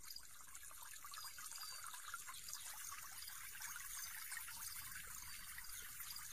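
Faint trickling hiss of river water, picked up by an action camera held underwater.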